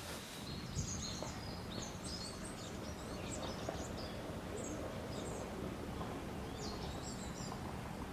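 Small birds chirping and twittering in quick, high notes, over a steady low background rumble.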